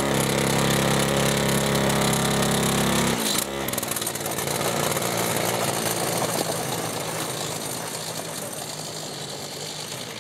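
Small 49cc two-stroke engine of a motorized snowboard running at high revs, held steady, then dipping and picking up again about three seconds in. It grows gradually fainter as the board moves away.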